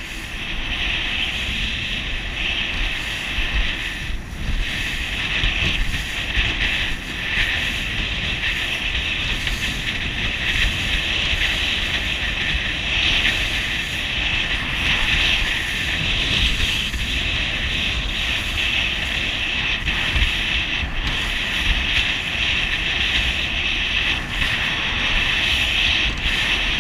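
Small open motorboat running at speed over choppy sea. The outboard engine drones steadily under water rushing and slapping at the hull, and wind buffets the microphone.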